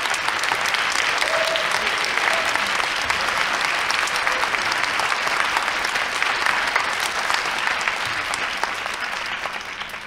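Theatre audience applauding, a dense crackle of many hands clapping that dies away near the end.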